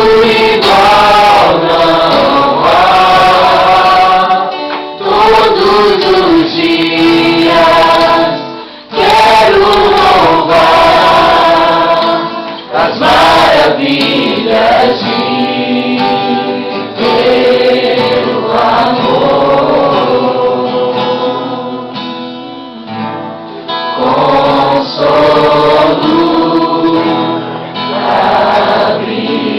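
Music: a group of voices singing a worship song.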